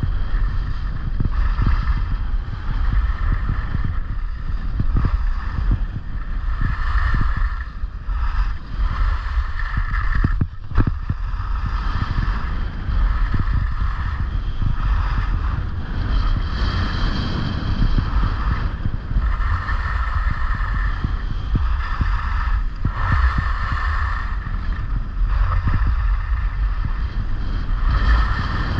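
Wind buffeting the microphone of a skier's camera, a steady low rumble, with the hiss and scrape of skis carving on groomed snow swelling and fading with each turn.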